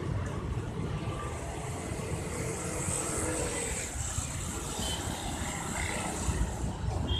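Busy street traffic noise: a steady low rumble of vehicles running and passing.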